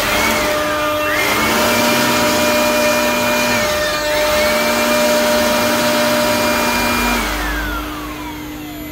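High-speed electric power tool working wood, its motor whine climbing to full speed, running for a few seconds and winding down, three times over. The last wind-down is long and slow, trailing off near the end.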